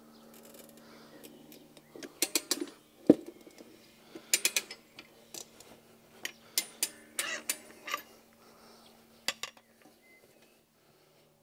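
Motorcycle tire changer's metal lever and duck head clicking and knocking against the wheel rim as the rear tire's second bead is levered off. The clicks come in irregular clusters, with one louder knock about three seconds in, and die away near the end.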